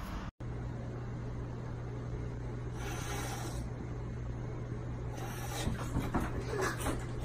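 Two house cats squabbling at a wooden chair over a steady low hum: a short hiss about three seconds in, then a flurry of light scratches and taps as one cat swats at the other.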